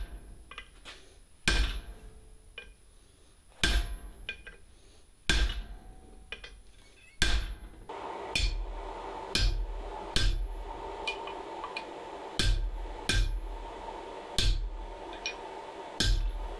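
Hand hammer striking a ball punch driven into a glowing piece of sucker rod on the anvil, punching the cup of a rivet set. There are about a dozen sharp ringing blows, one every second or two, coming closer together in the second half, with a steady hum behind them from about eight seconds in.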